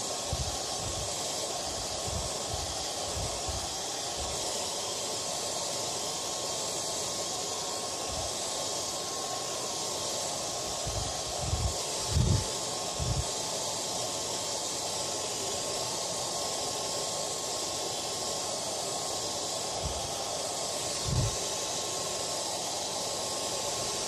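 Hair dryer blowing steadily, an even rush of air with a faint steady whine. A few brief low bumps come through, the strongest about twelve seconds in.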